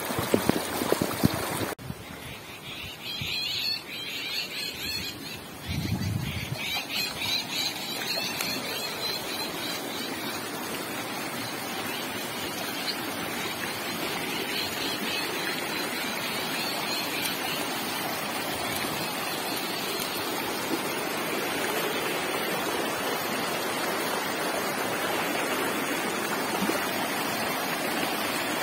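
Muddy rainwater floodwater rushing over a rural track and along a field edge: a steady wash of running water. It drops suddenly in level about two seconds in and builds back up by about six seconds.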